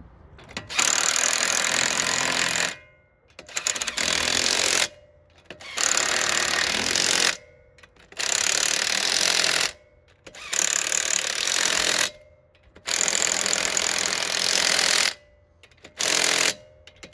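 Impact driver hammering in repeated bursts of one to two seconds, about seven in all, running wheel nuts onto the studs.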